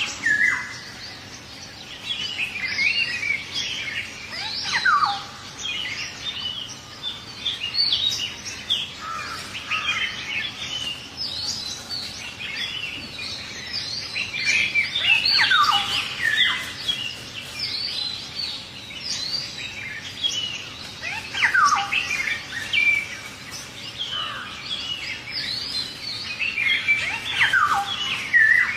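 Several birds chirping and whistling together, with a loud falling whistle that recurs about every six seconds.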